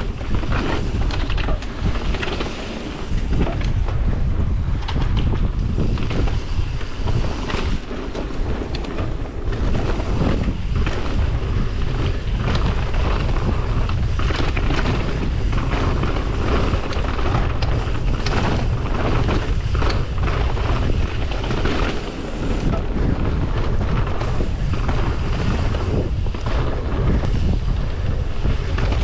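Wind buffeting an action camera's microphone over the tyre rumble and clatter of a mountain bike rolling fast down a dirt trail, with frequent knocks and rattles from the bumps.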